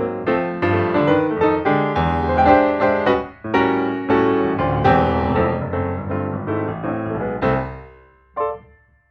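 Background music: a piano melody of struck notes, fading out near the end.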